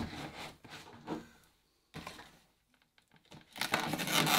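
Cardboard box being handled and turned over in the hands: a few faint knocks and rubs, a pause of near silence, then a louder stretch of cardboard scraping and rustling near the end.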